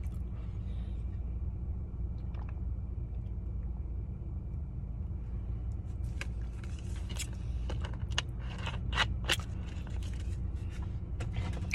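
Steady low hum of a car cabin, likely the idling engine, with a handful of short crunches from eating, mostly in the second half.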